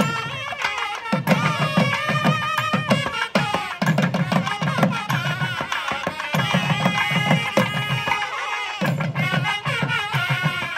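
Nadaswaram ensemble playing a film-song melody together over thavil drums beating a steady rhythm.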